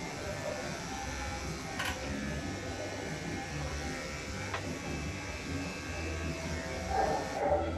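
Cordless electric dog clippers buzzing steadily as they shear a Labradoodle's coat, with a couple of faint clicks.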